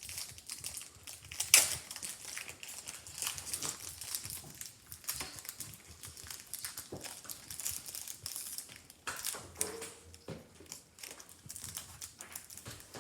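Foil wrapper of a Pokémon trading card booster pack crinkling and being torn open, in irregular crackles, with one sharp, loud crackle about a second and a half in.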